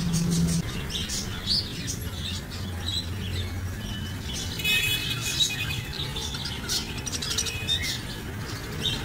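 Small caged parakeets, budgerigars among them, chirping and chattering: many short, high calls all through, with a burst of busier chatter about halfway through.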